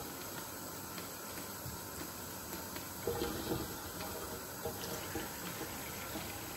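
Water poured from a plastic cup into another small plastic cup of liquid, with a few light knocks of the plastic cups.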